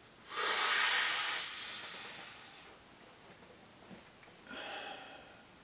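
A man mimes taking a hit off a joint: a long breath drawn in through pursed lips over about two seconds, loud at first and then fading, followed near the end by a shorter, softer breath out.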